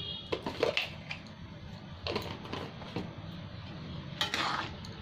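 A metal ladle clinking and scraping against an aluminium kadai as thick moong dal is stirred. There is a scatter of short knocks and scrapes, loudest about four seconds in, over a steady low hum.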